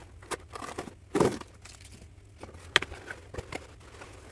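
Packaging being rummaged through in a shipping box filled with packing peanuts: scattered rustling and crinkling, with a louder rustle about a second in and a sharp click a little later.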